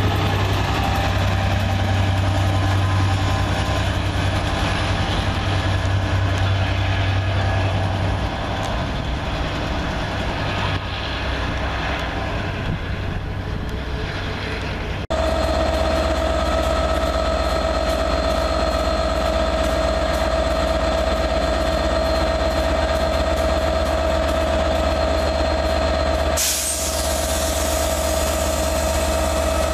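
Class 67 diesel locomotive's EMD two-stroke V12 engine: first a rumble as a loco moves a train of coaches past, then, after a sudden change about halfway through, a loco idling at a platform with a steady drone and a constant whine. A short hiss of air comes near the end.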